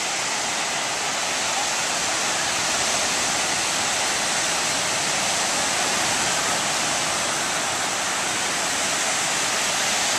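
Ocean surf breaking and washing up the beach, a steady wash of noise.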